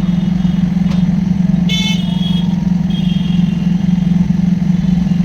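A steady low machine hum, with a vehicle horn tooting briefly about two seconds in and a fainter toot about a second later.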